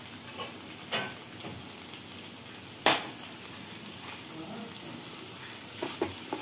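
Cooked raw jackfruit sizzling in oil in a kadai while a wooden spatula stirs it. Two sharp knocks on the pan come about one and three seconds in, the second the loudest, and a few lighter knocks follow near the end.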